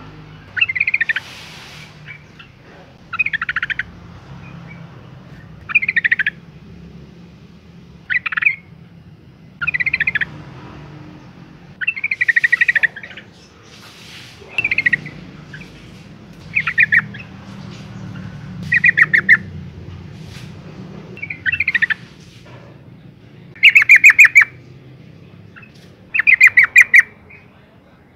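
Yellow-vented bulbul calling, sold as a female in breeding condition calling for a male: about a dozen short bursts of rapid chattering notes, one roughly every two seconds, the last few louder.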